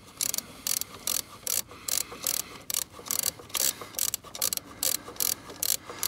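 Hand socket ratchet clicking in short quick strokes, about three a second, as it backs out a throttle body mounting bolt.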